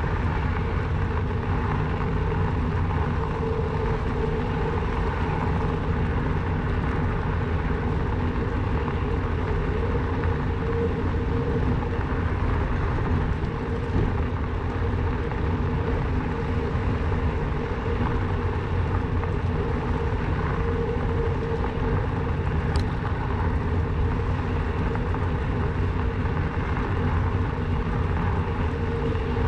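Steady riding noise from a Rawbike electric bike on the move: wind on the microphone and tyres rolling, with a faint even hum. A single light tick comes about 23 seconds in.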